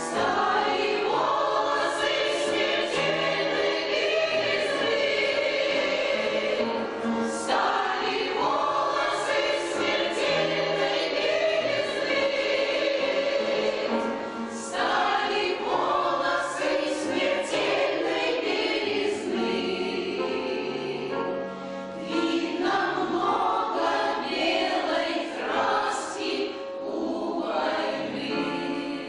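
An amateur choir singing a song in long phrases, with brief breaks between them.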